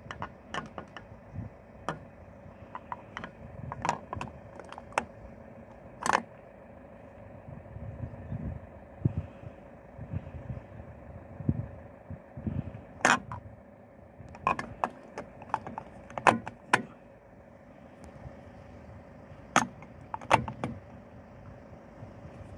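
Metal can of fuel-system cleaner clinking and tapping against the car's metal fuel filler neck as it drains upside down into the tank: a dozen or so sharp clicks scattered over a steady low hum.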